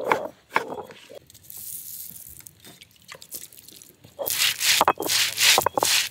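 A few knife chops on a wooden chopping board in the first second. Then, from about four seconds in, a loud run of rough crunching and scraping strokes as a cylindrical stone roller crushes dry spice seeds on a stone grinding slab (ammi kal).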